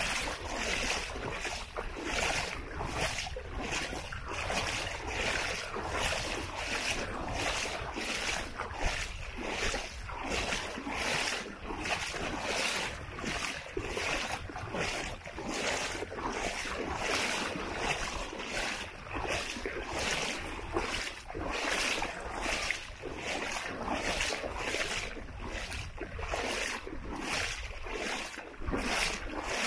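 Footsteps of someone walking at a steady pace, just under two steps a second, over a steady low rumble of wind on the microphone.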